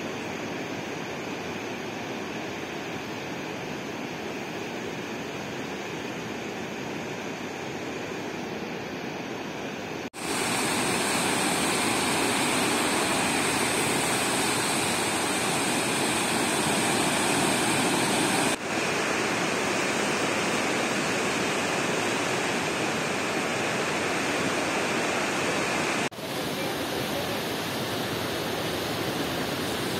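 Swollen, muddy Trishuli River in flood, rushing steadily. The sound gets louder about a third of the way in and shifts abruptly twice more later.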